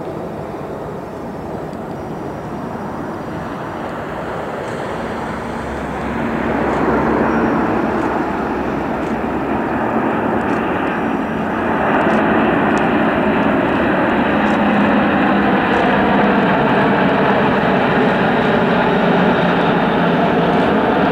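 Iberia Airbus A340's four turbofan engines on final approach with landing gear down, a jet roar growing louder in two steps, about six and twelve seconds in, as the airliner comes close overhead.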